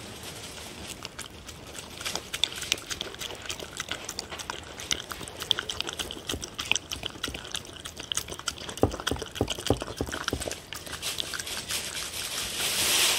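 A dog eating wet food from a stainless steel tray: rapid wet lapping, licking and chewing clicks. A few heavier knocks come a little past the middle.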